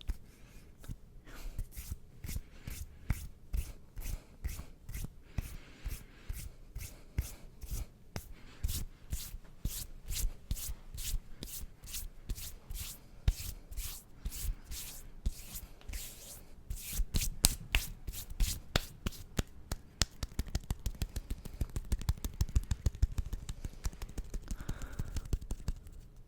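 Bare hands rubbing and swiping against each other close to a microphone: quick skin-on-skin strokes, a few a second at first, speeding up to a dense, continuous rubbing in the last several seconds.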